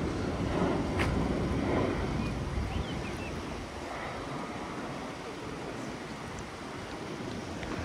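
Steady rush of the fast-flowing Mzymta river, with wind buffeting the microphone.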